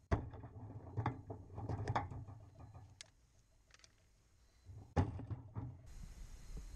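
Yellow one-handed quick-release bar clamps being released and pulled off a chain-link fence: a sharp click, then a run of small clicks and rattles, and after a pause another sharp click.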